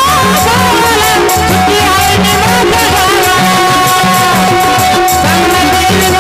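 Marathi devotional gondhal music with a steady drum beat and a shaken rattle, under a long held note and a bending melodic line.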